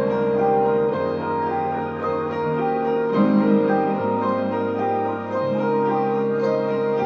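Background music: slow piano chords, held and changing about every second.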